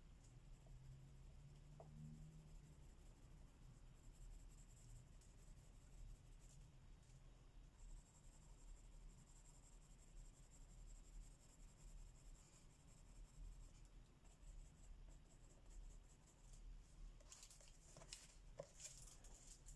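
Faint, steady scratching of colouring strokes on paper, with a few light taps near the end.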